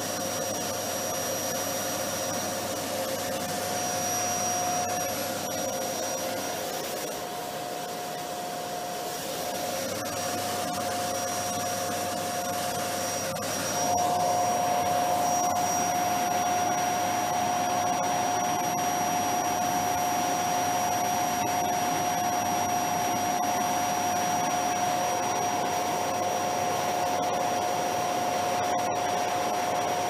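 Vacuum cleaner running steadily: a constant rushing drone with a motor whine in it. About halfway through it gets louder and the whine grows stronger.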